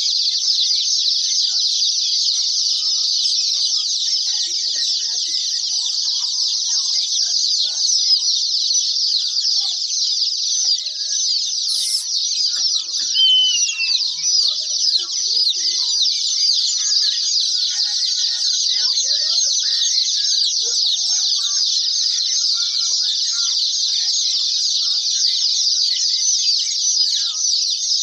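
A large flock of day-old broiler and layer chicks peeping continuously: a dense chorus of many overlapping high, short, falling peeps.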